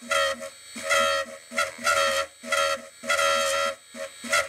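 Countersink bit in a high-speed, low-torque CNC router spindle chattering as it is fed by hand into a drilled hole: a shrill, squealing tone that comes in short, repeated bursts at the same pitch, on and off as the cut bites and eases.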